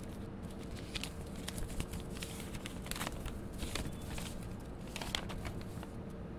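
Faint rustling and light clicks of things being handled, over a steady low hum.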